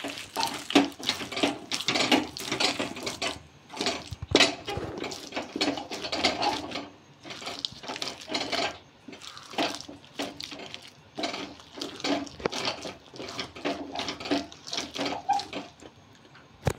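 A rolling-pin-shaped wooden Bhotia stick mashing and stirring a thick, wet paste of boiled leafy greens in a metal kadhai, in a run of irregular wet strokes against the pan, roughly two a second. The mix is being worked on a low flame until it is fully blended.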